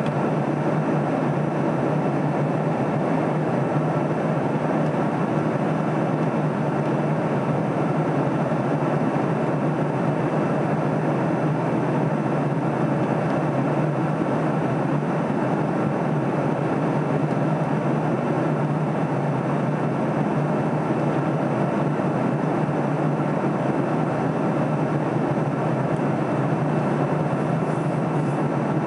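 Steady cabin noise of a jet airliner in flight: an even rush of airflow and engine noise over a low hum, unchanging throughout.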